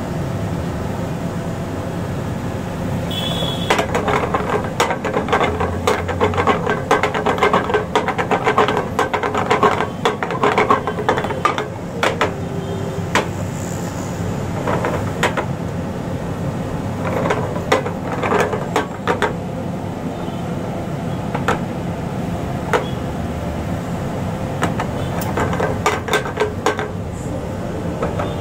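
Spatula stirring and pressing rice in a small frying pan on a gas stove: repeated short scrapes and taps against the pan, starting a few seconds in and coming in bursts, over steady background noise.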